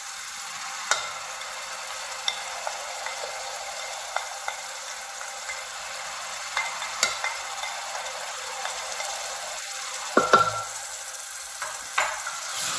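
Spiced masala sizzling in hot oil in a pressure-cooker pan, with scattered clicks and taps of a spatula scraping powdered spices off a plate and stirring the pan; the loudest knock comes about ten seconds in.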